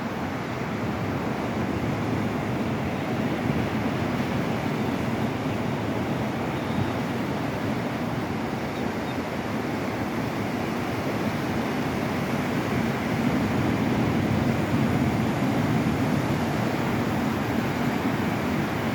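Ocean surf breaking and washing on a beach: a steady rush of waves that swells a little louder about two-thirds of the way through.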